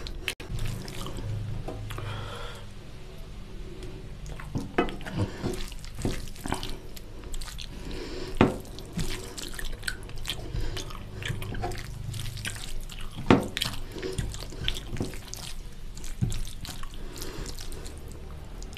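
Fingers mixing basmati rice into oily chicken curry gravy on a plate, close to the microphone: wet, sticky squelches and scattered clicks, with a couple of sharper clicks about eight and thirteen seconds in.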